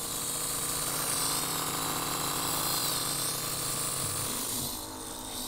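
Geyser portable shower's electric water pump running, pushing a thin jet of water out of the bare hose nozzle: a steady motor hum with the hiss of the spray, dropping a little in level near the end.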